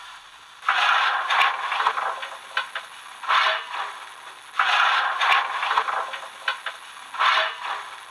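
Coal-shovelling sound effect from the DCC sound decoder of a Fleischmann P 10 model steam locomotive: a shovel scraping into coal, heard four times at intervals of one to two seconds.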